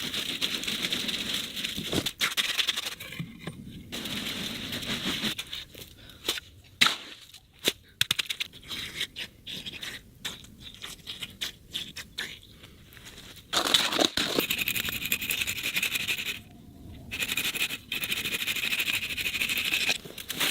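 Scraping and knocking of hand tools working wet concrete for a foundation, changing abruptly several times, with a few sharp knocks.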